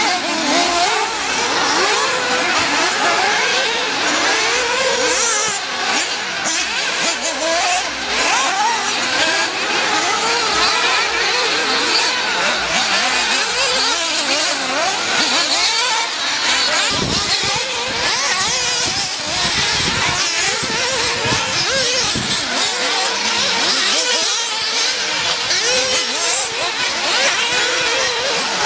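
Several 1/8-scale nitro RC buggies' small two-stroke glow-fuel engines revving on and off the throttle around a dirt track. The result is a chorus of high, wavering whines that rise and fall as the cars accelerate and brake.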